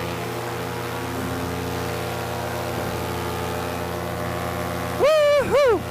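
Paramotor's two-stroke engine and propeller running steadily in flight, a constant drone. Near the end a voice calls out loudly twice, briefly, over the engine.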